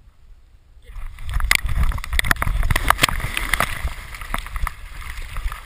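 Water sloshing and splashing right at a dog-mounted GoPro as a chocolate Labrador retriever moves through water, starting about a second in with a steady low rumble and many quick, irregular splashes.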